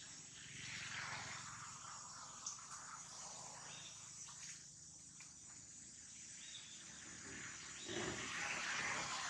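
Steady outdoor insect chorus, a continuous high chirring, with a louder rush of noise about eight seconds in.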